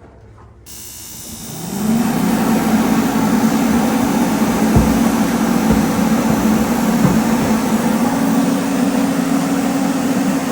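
Forced-air propane heater starting up: its blower spins up with a rising hum within the first two seconds, then runs steadily with a loud rush of air and burning gas.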